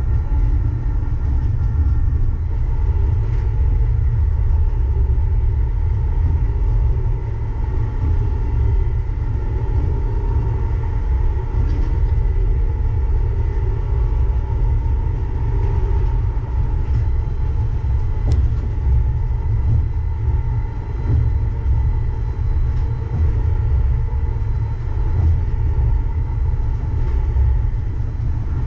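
Uijeongbu light rail train, a Siemens VAL 208 rubber-tyred driverless car, running along the line, heard from inside the car: a steady low rumble with a faint steady whine from the drive.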